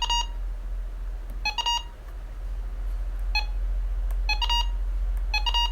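Short electronic beeps from a device, mostly in quick pairs, about five groups spaced irregularly over a steady low hum.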